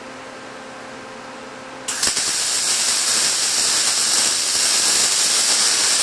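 Electric arc welding of one short stitch of an intermittent fillet weld on steel. The arc strikes about two seconds in with a sudden loud, steady crackling hiss, then cuts off at the end. Before the strike there is only a faint steady hum.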